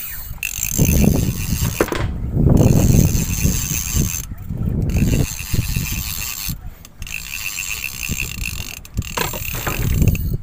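Fishing reel ratchet clicking in quick runs, with wind rumbling on the microphone.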